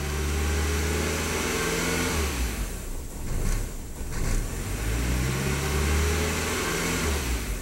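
A 1999 VW Passat 1.8-litre turbo four-cylinder engine is held at raised revs. About two and a half seconds in the revs fall away, then climb again and drop back near the end. The engine has a faulty mass airflow sensor, which makes it run rough, surge and nearly die.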